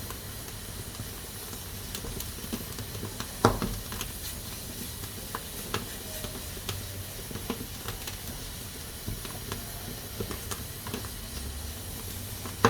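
Pressure cooker hissing steadily with steam, with irregular small clicks and crackles and a loud sharp pop about three and a half seconds in and another at the end.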